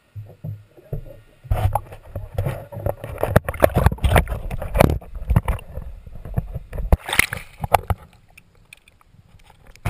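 Water splashing and sloshing with many irregular knocks, muffled as if through a camera held under the water, while a hooked bass is fought up to the boat. It goes quiet about three seconds before the end.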